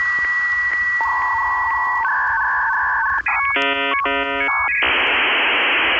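Dial-up modem handshake. A steady high answer tone clicks about every half second. A second in, warbling alternating tones begin. About three and a half seconds in comes a burst of chord-like multi-tone probing, and near the end it settles into a steady hiss of data noise.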